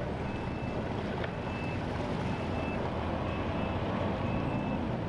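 Boat engine idling with a steady low rumble, and a short high beep repeating every second or so.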